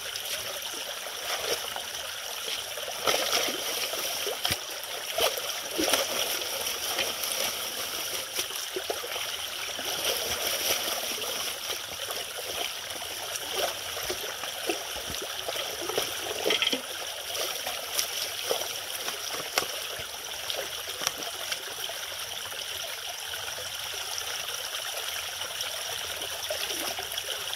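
Steady trickle of running water with frequent small splashes and knocks scattered throughout.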